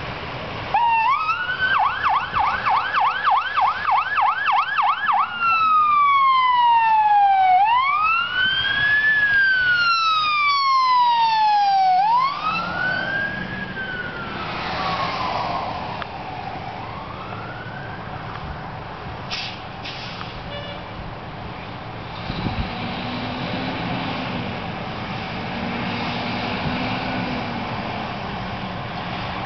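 Ambulance siren switched on as the rig pulls out: a fast yelp for about four seconds, then a slow rising-and-falling wail that fades away as it drives off. Later a fire engine's low, steady engine drone comes in as the truck rolls out of the station bay.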